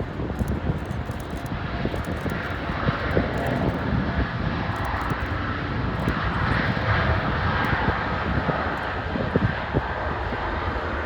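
Boeing 787-9 jet engines at takeoff thrust: a steady jet rush that swells, with a higher whine coming up about six seconds in. Gusty wind buffets the microphone.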